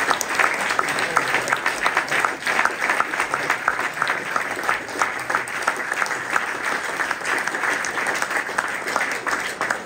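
Audience applauding steadily, a dense patter of hand claps.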